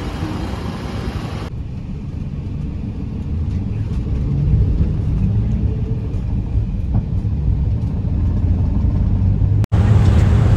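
City street traffic noise, then the steady low rumble of a road vehicle's engine and tyres heard while riding through traffic, growing louder after a few seconds. Near the end it cuts abruptly to a louder, steady low road drone inside a moving van.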